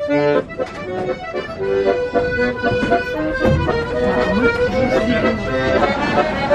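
Accordion played live: a melody of changing notes over held chords.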